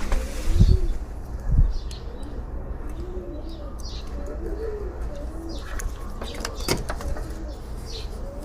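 A dove cooing over and over in short, arching phrases, with a couple of low thumps in the first two seconds.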